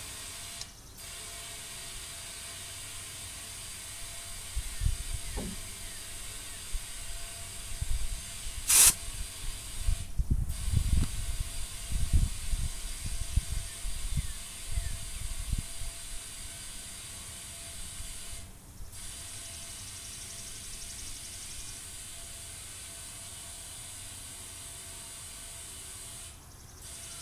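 Compressed air hissing steadily into a freshly plugged truck tire as it is inflated, with short breaks four times. Low knocks and bumps come in the middle stretch, with a sharp click about nine seconds in.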